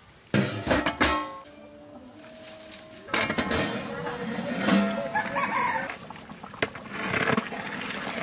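Chickens: a rooster crowing in a long, wavering call through the middle, with shorter clucking calls near the start.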